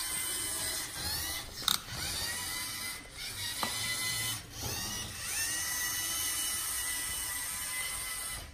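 Electric motors and gears of a small LEGO Mindstorms robot whining as it drives, the whine rising in pitch as the motors speed up about a second in and again about five seconds in. A couple of sharp clicks come in between.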